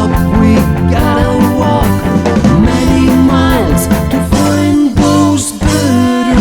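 Rock music with no vocal: a lead guitar plays gliding, bent notes over a full band backing.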